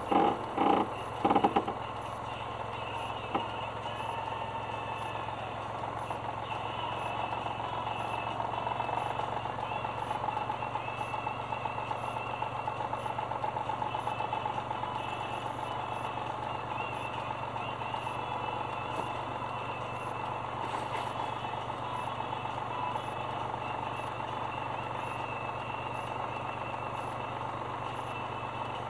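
Grinding noise from a Suzuki Alto Works front wheel hub bearing. A quick run of pulses settles within the first two seconds into a steady whirring grind. The noise comes from hubs worn 0.5 to 1 mm, reassembled with new bearings.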